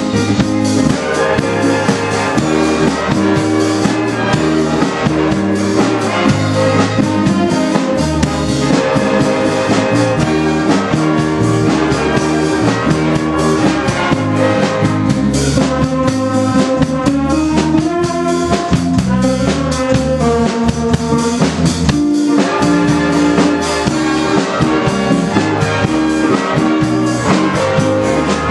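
Live big band playing: a section of saxophones, trumpets and trombone over a drum kit, with electric archtop guitar and bass guitar.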